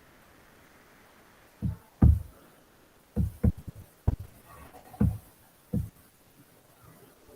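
A few irregular dull knocks and thumps, about seven of them over four seconds, over a faint steady hiss.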